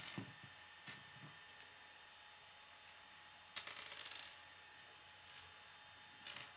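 K'nex plastic rods and connectors clicking as they are handled and snapped together: a few separate sharp clicks, then a quick run of small rattling clicks about three and a half seconds in.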